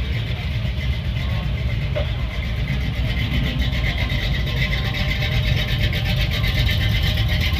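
Car engine idling, a steady low rumble with fine, even pulses, growing a little louder near the end.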